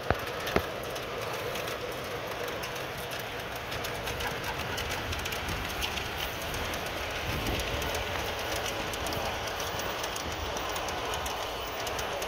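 G-scale model freight train rolling past, its wheels clicking steadily over the track, with two sharp clicks right at the start.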